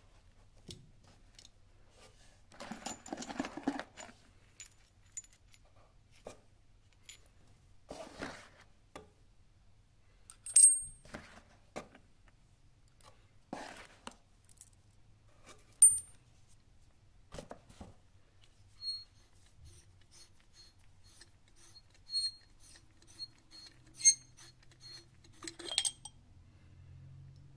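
Small metal hose fittings clinking as they are handled and set down, with cardboard box rustling early on and the sharpest clinks about ten and sixteen seconds in. Near the end a run of light, evenly spaced ticks as the oil catch can's screw-on lid is turned.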